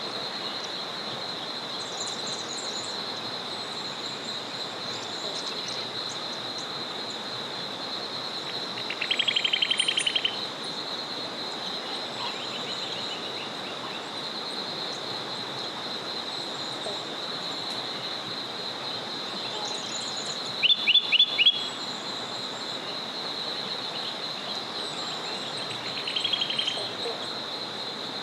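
A small forest river flows with a steady rushing hiss under a steady high-pitched chorus. A bird calls in three short bouts: a rapid trill about nine seconds in, four loud sharp notes around twenty-one seconds, and a shorter trill near the end.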